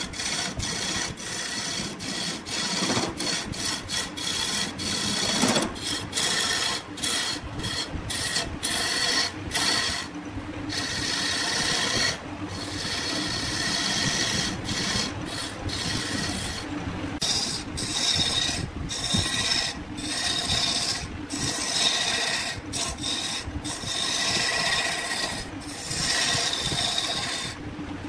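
Wood being scraped by a cutting tool on a running wood lathe: a continuous rasping scrape, broken by many short gaps where the tool lifts off.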